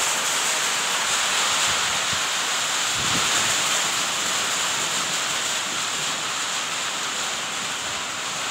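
Heavy rain falling steadily, an even, continuous hiss.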